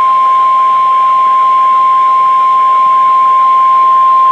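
NOAA Weather Radio warning alarm tone: a single steady high-pitched tone of about 1050 Hz over radio hiss. It signals that a warning message follows.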